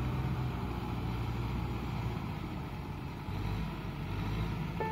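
Kubota tractor's diesel engine running steadily under load as it pushes through a flooded, muddy rice paddy, with water churning around its wheels and front blade.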